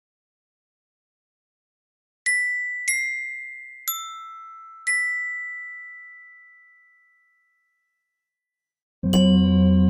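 Four bell-like chime notes struck one after another, each ringing out and fading. Near the end a loud sustained chord begins suddenly and holds steady.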